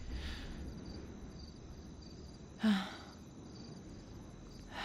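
Crickets chirping steadily in the background, with a person's short sigh about two and a half seconds in.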